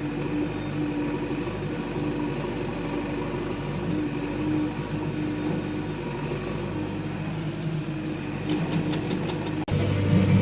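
Heavy machine's diesel engine running steadily at idle, with a fast rattle near the end, then cut off abruptly and replaced by a louder, different sound.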